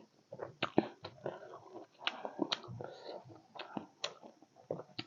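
Chewing and crunching a mouthful of chatpate, a spicy puffed-rice snack, heard as irregular crisp crackles and clicks.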